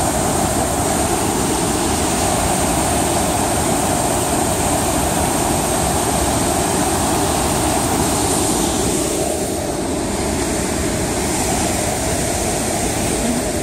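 The Athabasca River's water rushing over Athabasca Falls: a loud, steady rush of water that eases slightly about nine seconds in.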